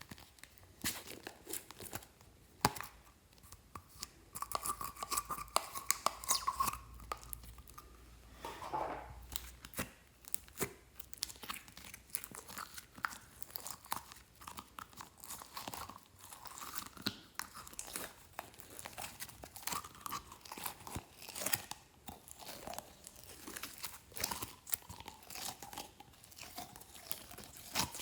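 Glossy slime being squished and stretched by hand: a steady run of irregular sticky clicks and crackles, with a few brief squeaky squelches.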